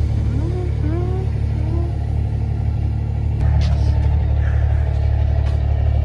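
Heavy diesel engine running steadily at idle, growing louder about three and a half seconds in.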